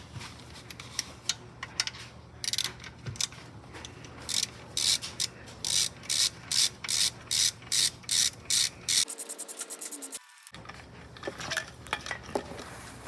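Hand ratchet wrench clicking as a bolt is worked, in regular strokes about two a second, then a quick run of fast clicks near the end.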